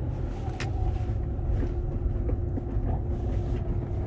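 Interior cabin noise of a Renault Kangoo 2 van on the move: a steady low rumble of engine and road, with one sharp click about half a second in.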